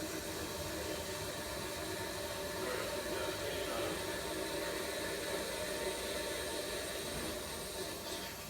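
Steady hiss with a faint low hum from the newly fitted replacement tank and its straight line in operation, free of the noise the old tank made.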